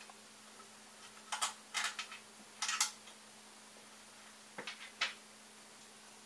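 Hands handling wires and parts on a 3D printer's frame: a few clusters of short clicks and rustles, over a faint steady hum.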